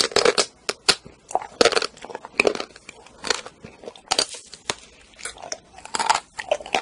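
Bites into a chocolate-coated ice cream bar, the hard chocolate shell crackling and snapping, with chewing in between. The crunches come irregularly, a loud one about every second.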